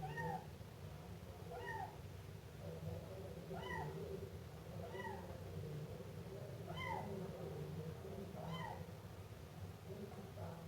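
Siamese kitten meowing repeatedly: about six short meows, each rising and falling in pitch, one every second and a half or so, over a steady low rumble.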